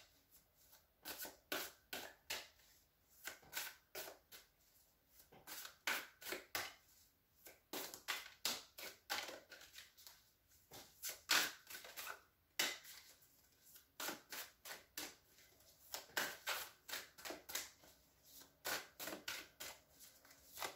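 A deck of tarot cards being shuffled by hand: short, sharp card slaps and flicks coming in quick clusters of a few strokes, with brief pauses between them.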